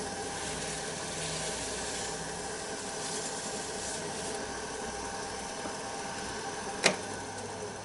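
Wood lathe running steadily at the buffing stage, as the oiled egg cup is wiped down with a cloth. A single sharp click near the end.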